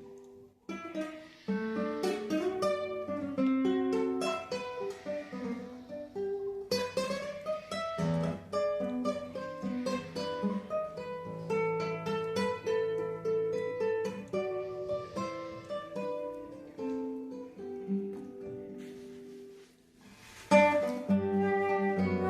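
Acoustic guitar playing a folk tune solo, a plucked melody over bass notes. The playing drops away briefly about a second in and again near the end, then comes back strongly.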